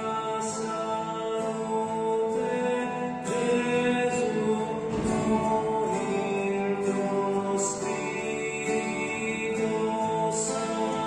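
A man sings an Italian sacred song, accompanying himself on acoustic guitar.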